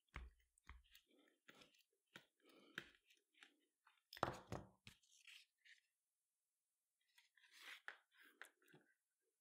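Near silence with faint scattered rustles and small clicks of paracord being handled and pulled through a braid while splicing, a slightly louder cluster about four seconds in.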